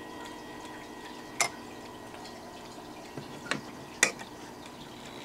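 Howard Miller mantel clock's minute hand being turned by hand: a few sharp, irregular clicks from the hand and movement. The faint ringing of the chime rods dies away in the first second.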